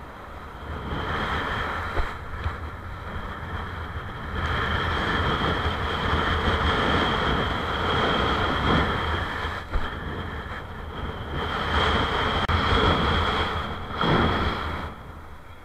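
Strong wind buffeting a kitesurfer's action-camera microphone, mixed with a kiteboard hissing and splashing through foamy whitewater; the noise swells and drops every few seconds, with a steady high whistle running through it.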